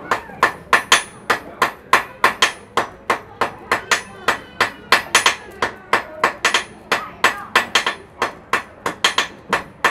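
Blacksmith's hand hammer striking white-hot iron on an anvil in quick, even blows, about three to four a second. This is forge welding: the iron is hammered at welding heat to fuse the pieces together.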